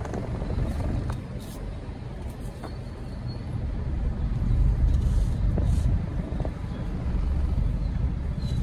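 Low, steady rumble of engines and traffic heard from inside a car's cabin as it creeps along in a traffic jam, growing a little louder midway, with a few faint clicks.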